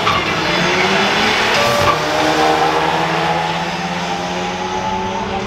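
Drag-racing cars accelerating down the strip, their engines revving up with a rising pitch and fading slightly as they pull away.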